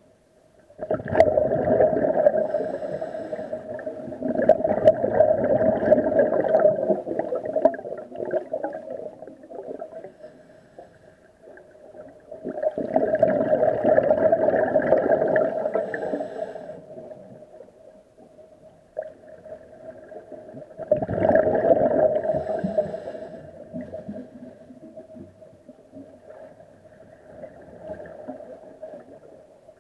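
Scuba diver breathing out through a regulator underwater: a few long bursts of bubbling several seconds apart, with quieter breathing between them. A steady hum runs underneath.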